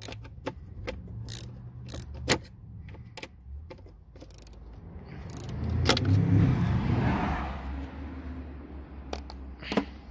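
Scattered metallic clicks and clinks of a small ratchet wrench being worked on the blower-motor resistor's screw. A louder noise swells and fades between about five and eight seconds in.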